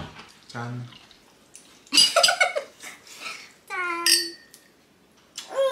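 A metal spoon clinking and scraping against a ceramic serving dish, then two wine glasses clinked together in a toast, mixed with short bits of voices.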